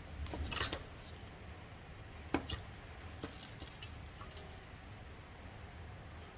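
Metal parts and tools being handled during a Chrysler A904 automatic transmission teardown: a brief scrape about half a second in, a single sharp clink a little past two seconds, then a few lighter ticks.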